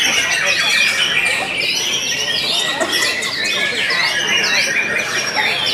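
White-rumped shamas singing, several at once: a dense, continuous tangle of rapid rising and falling whistles and chattering phrases.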